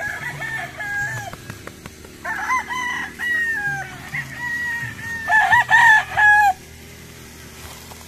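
Gamecocks crowing, one long crow after another, the loudest near the end.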